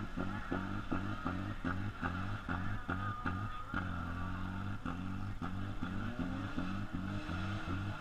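Music with a steady beat, about three beats a second, over the noise of car engines.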